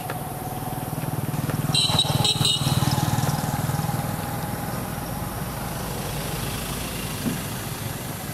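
A motor vehicle engine passing by: a low hum that builds to its loudest about two seconds in, with brief higher-pitched sounds at the peak, then fades slowly.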